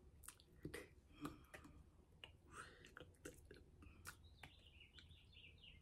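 Near silence: quiet room tone with a low hum and faint scattered clicks and mouth noises, such as lip smacks and breaths, from a person signing.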